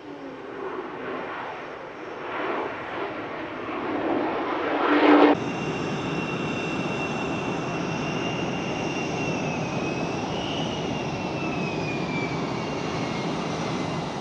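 F-35C Lightning II's single Pratt & Whitney F135 turbofan jet engine on landing approach. The noise swells with a sweeping, phasing quality to a peak about five seconds in. After an abrupt cut, steady jet engine noise with a high whine follows, and the whine slides lower near the end.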